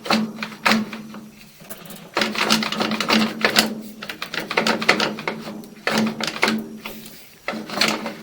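Sewer inspection camera and its push cable being fed through a kitchen sink drain line: rapid, uneven clicking and rattling in clusters, over a steady low electrical hum.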